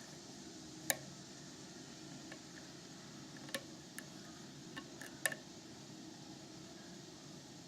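Faint, sharp metallic clicks of a hook pick working the pin tumblers of an FAB 100L euro cylinder held under tension, about six scattered clicks over a steady low hiss.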